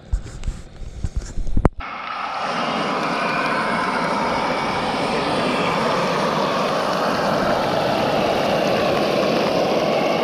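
A few handling knocks on the camera, then whole trout frying in hot oil in a pan: a loud, steady sizzle.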